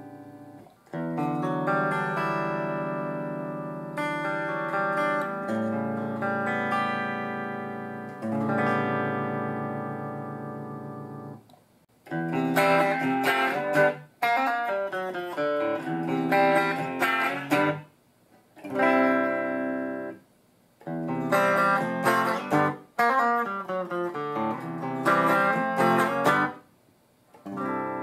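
Electric guitar played through a guitar amplifier. Ringing chords are held a couple of seconds each at first, then from about halfway through come shorter picked phrases broken by several brief pauses.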